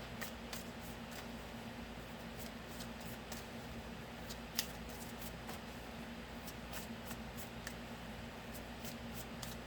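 Tarot cards being handled: a scatter of light clicks and taps, with one sharper click about four and a half seconds in, over a faint steady hum.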